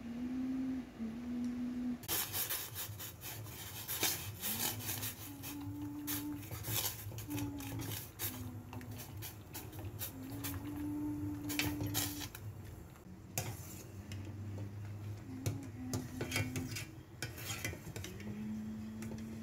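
Chopsticks clicking and scraping against a stainless steel pot while noodles are stirred in water, starting about two seconds in. A soft, low melody of held notes runs underneath.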